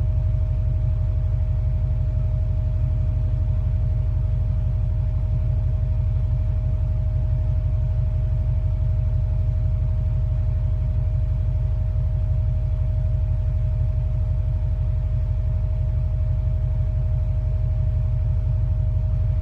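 Cargo ship engine humming: a deep, steady rumble with a fast, even pulse, and a steady higher hum above it.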